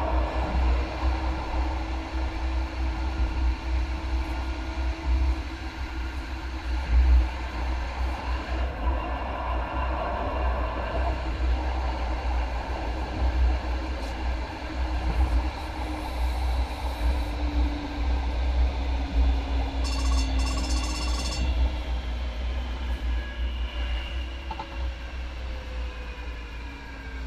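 MAX light rail train running along the track: a steady low rumble with rolling noise and motor tones. Near the end, the tones fall in pitch as the train slows into a station.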